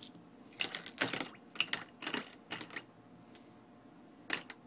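Small steel lathe parts being handled and clinking against each other, a quick run of bright metallic clinks with a short ring, then one more clink near the end.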